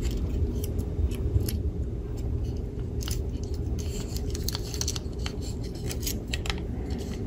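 Light plastic clicks and scrapes as an SG90 micro servo is pushed into the slots of a 3D-printed plastic case, over a steady low hum.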